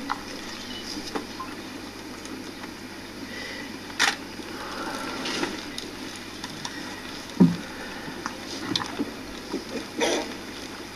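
Hushed large crowd: a steady low background hiss with a few scattered rustles and small knocks, about four seconds in, a louder low thump past seven seconds, and again near the end.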